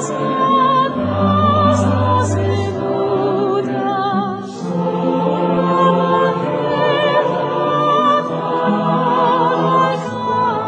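Sacred choral music: several voices singing sustained notes with vibrato.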